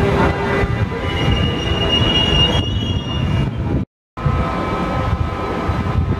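Train rolling slowly through the station tracks, its wheels squealing in a high tone for about a second and a half. The sound drops out briefly about four seconds in, then the Bombardier Traxx electric locomotive is heard rolling slowly with a steady hum.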